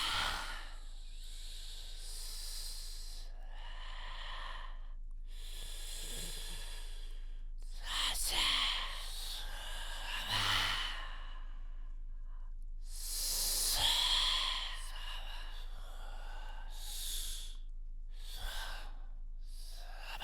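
Ocean waves imitated entirely with the human voice: breathy, hissing "shhh" swells that rise and fade one after another, with short gaps between them.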